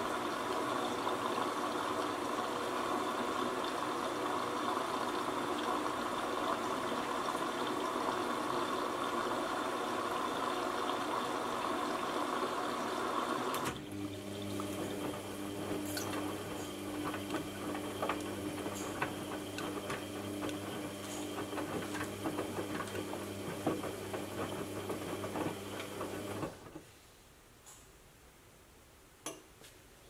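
Aldi front-load washing machine filling with water, a steady rush that cuts off about halfway through. A motor hum with light knocks then runs for roughly thirteen seconds and stops suddenly, leaving the machine almost quiet.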